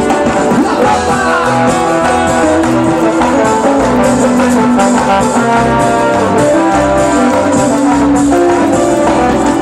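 Live cumbia band playing an instrumental passage: brass and guitar over a steady beat.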